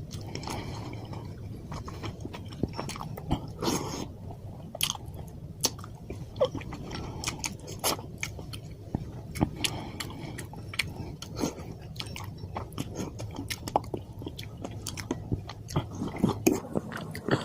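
Close-up chewing and mouth sounds of someone eating fish curry with white rice, with many short, irregular clicks over a low steady hum.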